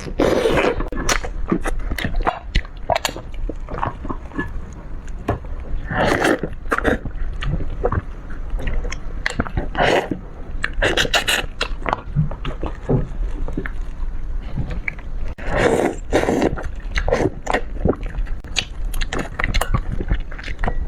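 Close-miked eating of fish: irregular biting and chewing with wet clicks, crunching and scraping.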